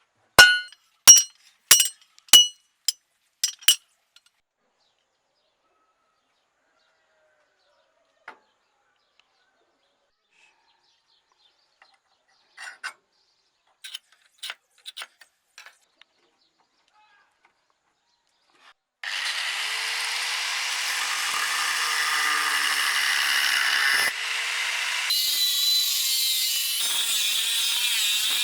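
Steel clinking and ringing in several sharp strikes over the first few seconds, then a few light clicks. About two-thirds of the way in, a power grinder starts running steadily on the steel, its motor pitch dipping under load, and keeps going to the end.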